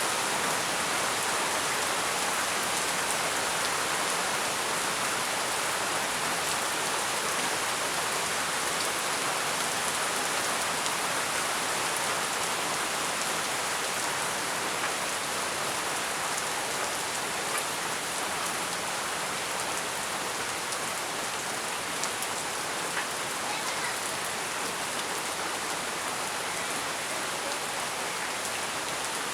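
Heavy rain falling steadily: a dense, even hiss with a few separate drop taps here and there.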